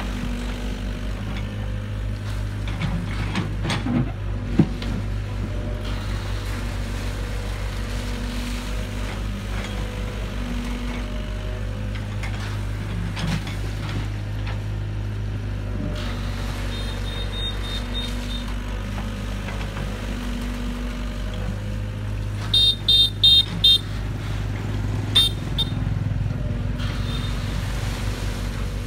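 Crawler excavator's diesel engine running steadily as it digs, its hum rising and falling as the hydraulics work the boom and bucket, with a few sharp knocks about four seconds in. Near the end, a quick run of short high-pitched beeps.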